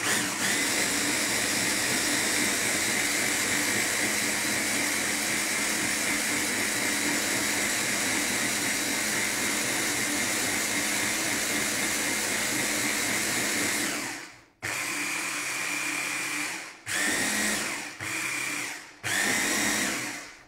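Electric blender with a motor unit mounted on top of the jug, puréeing gazpacho with added water to thin the thick paste. It runs steadily for about fourteen seconds, cuts out, then is pulsed in four short runs.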